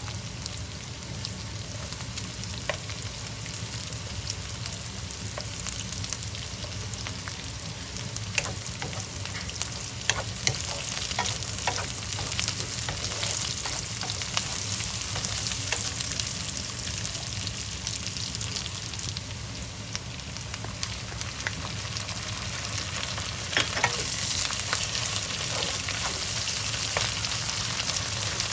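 Food frying in hot oil in a pan: a steady sizzle with scattered sharp spitting pops.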